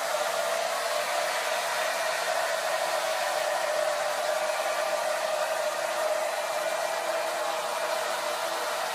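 Hair dryer running steadily, a constant rush of air with a steady hum, blowing on hanging sheets of developed 4x5 film to dry them.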